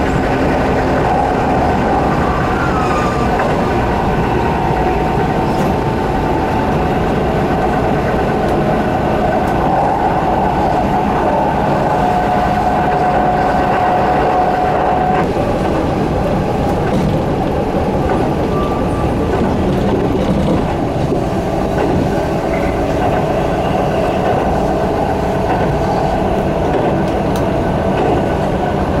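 Keihan electric train running at speed, heard from inside the passenger car: a steady rumble of wheels on rail, with a faint whining tone that comes and goes.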